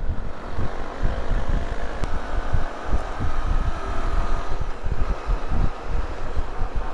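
Wind buffeting the microphone of a moving motorcycle, with the motorcycle's engine running underneath; the engine note rises a little in the middle.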